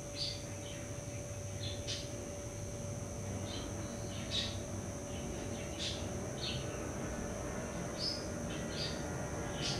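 Small garden songbirds giving short, high chirps and call notes, a dozen or so scattered irregularly, over a steady low background rumble.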